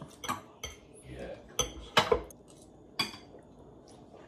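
Metal forks and spoons clinking and scraping against ceramic plates and a bowl while eating, a string of sharp irregular clinks with the loudest about two seconds in.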